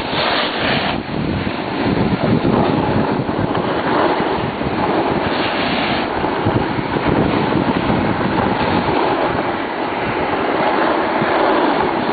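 Wind buffeting the microphone while moving down a snowboard run at night, a steady rushing noise that swells into a brighter hiss briefly at the start and again about five seconds in.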